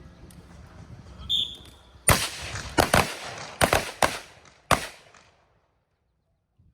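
A short whistle blast about a second in, then a ragged run of about six rifle shots over under three seconds, from shooters on the line each firing a single shot on the whistle.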